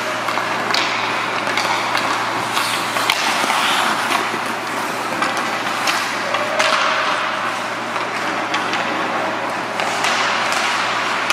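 Ice hockey play on a rink: skate blades scraping across the ice, with sharp clacks of sticks and puck scattered through it, over a steady low hum.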